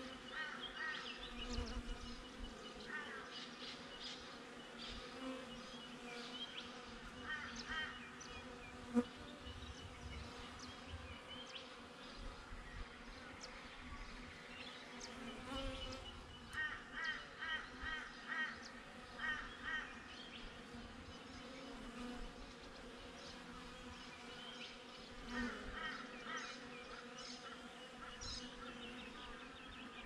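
Honey bees buzzing at the entrance of a box hive, a steady low hum. Several times a bird chirps in short bursts of quick repeated notes, and a single sharp tick sounds about nine seconds in.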